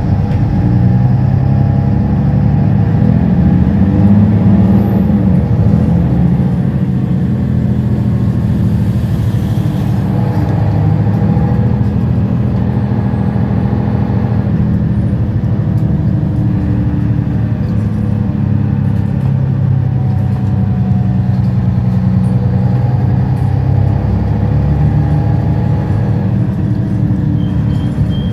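Mercedes-Benz Citaro bus engine heard from inside the passenger cabin near the rear, pulling the bus along with its note rising and dropping several times as the automatic gearbox changes gear.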